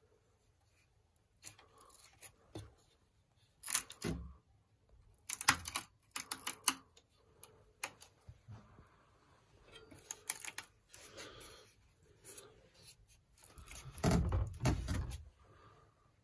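Irregular clicks, taps and rustles from a phone being handled by hand close to its microphone, with a louder muffled rubbing near the end.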